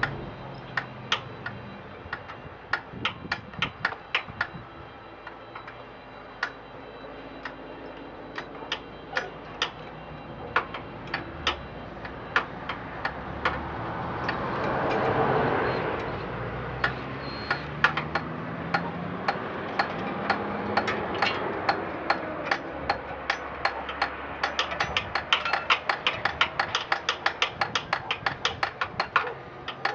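Hand tools working on a riding lawn mower: sharp metal clicks, scattered at first, then a fast even run of clicks over the last several seconds. A rush of noise swells and fades about halfway through.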